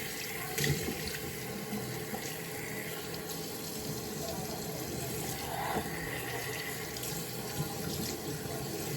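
Bathroom sink tap running steadily while water is splashed onto the face to rinse off soap, with a few brief splashes over the flow.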